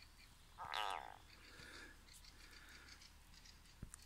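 A frog seized by a snake giving a strange, strained distress croak, once, about half a second long just under a second in. A soft click near the end.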